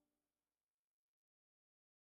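Silence: the background music fades out between tracks.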